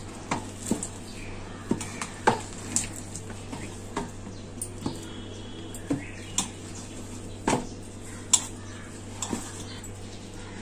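Hand kneading stiff urad dal dough in a stainless steel bowl: irregular knocks and thuds of dough and hand against the steel, roughly one a second, over a low steady hum.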